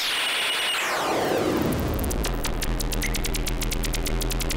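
Breadboard-built Mroztronium "New Unusual Oscillator" noise circuit putting out harsh electronic noise. Its pitch sweeps down from a high whine to a low growl as a knob is turned, then settles into a rapid, even stream of crackling clicks over a low buzz.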